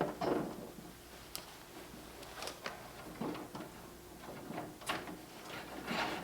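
Hands working on the plastic casing and parts of an LG stand air conditioner: scattered clicks, knocks and short scrapes of plastic, a few seconds apart.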